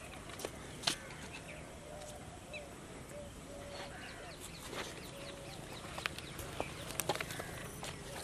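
A bird calling faintly over and over in short, low notes, with a few sharp clicks and taps.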